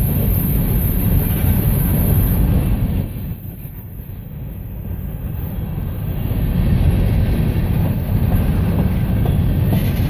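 Loaded freight train of covered hopper cars rolling past close by: a steady rumble of steel wheels on the rails, easing off for a few seconds about three seconds in and then building back up.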